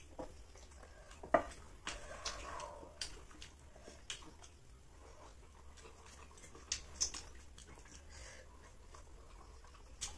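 Mukbang eating sounds: flaky Malabar parathas being torn apart by hand and chewed, a scatter of soft crackles and small clicks, with one sharper tap about a second and a half in.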